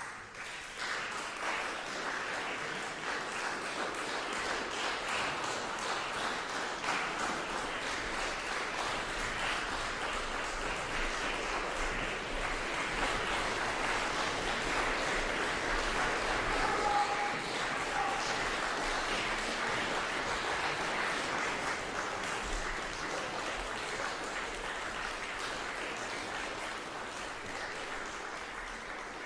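Audience applauding in a concert hall: dense, steady clapping that swells in the first second and thins out slowly near the end.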